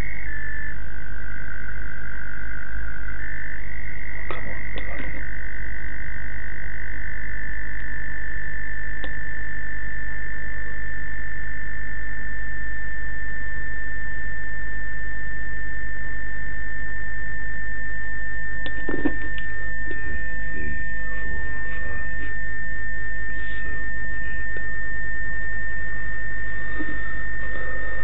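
Demodulated audio from a software-defined radio receiver tuned to a continuous pulsed carrier near 847 MHz: a steady high tone over hiss and a low hum. The tone's pitch steps down and back up a few times in the first five seconds as the tuning shifts, then holds steady.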